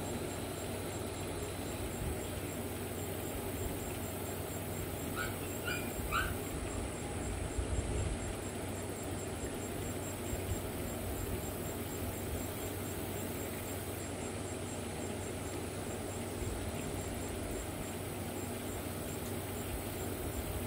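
Steady outdoor background noise. About five to six and a half seconds in come three short animal calls, like a dog barking somewhere off.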